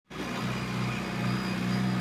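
JCB earthmoving machine's diesel engine running steadily.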